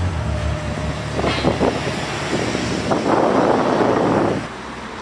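Ferrari 812 Superfast's V12 engine running low and steady, fading away in the first half-second. After a few scattered clicks, a loud rushing noise lasts about a second and a half and stops abruptly.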